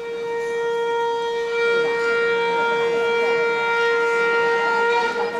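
Bollywood dance music starting over a hall's sound system: one long held note at a steady pitch, with fainter wavering sounds above it from about a second and a half in. The note breaks off about five seconds in as the track moves on.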